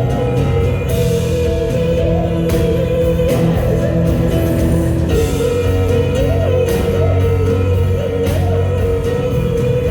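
Live band music with a woman's voice singing over it, a held high note and a strong bass line, with drum hits here and there.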